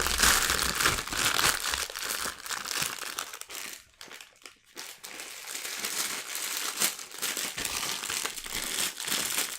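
Packaging crinkling and rustling as a parcel is opened by hand, with a brief lull about four seconds in.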